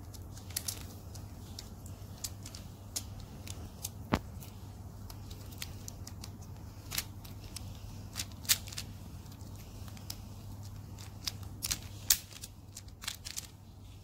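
Plastic clicks and clacks of a Pyraminx puzzle's layers being turned by hand, coming irregularly with a few sharper snaps among them.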